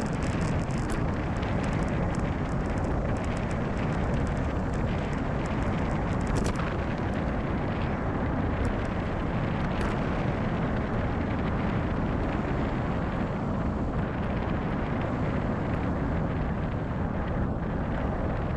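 Steady wind rushing over a bicycle-mounted action camera's microphone while riding at speed, with a few faint ticks from the bike over the road surface.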